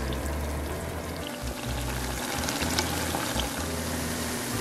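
Shredded burdock root and onion kakiage frying in oil at 170 °C: a steady bubbling sizzle with scattered crackles. Light background music plays under it.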